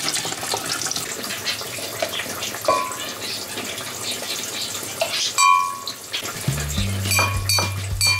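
Minced-meat filling sizzling in a frying pan under background music, with deep bass notes coming in about six and a half seconds in.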